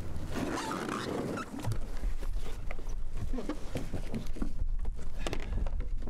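Scattered knocks and clicks of kayak gear being handled on a wooden dock, over a low wind rumble on the microphone.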